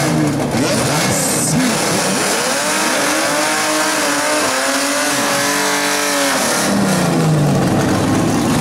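Drag cars doing burnouts at the start line: engines revving with the hiss and squeal of spinning rear tyres. The revs climb and hold high from about three to six and a half seconds in, then drop back.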